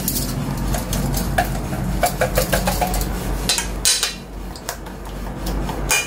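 A utensil clinking and scraping against a small metal mixing bowl as egg batter is stirred by hand, in quick, irregular taps.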